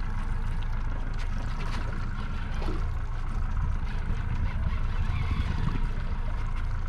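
Skiff's outboard motor idling with a steady low rumble, under a haze of water and air noise.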